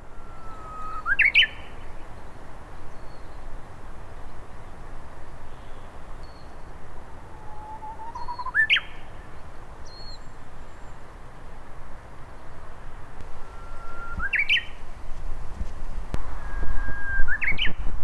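Japanese bush warbler singing its 'hoo-hokekyo' song four times, about every five seconds: each phrase is a long steady whistle that breaks into a quick rising flourish. Faint short chips from another bird come between the phrases, and a low rumble rises near the end.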